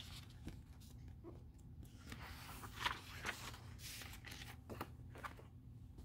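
Faint handling noise of books being moved: soft rustling and sliding, with a few light knocks.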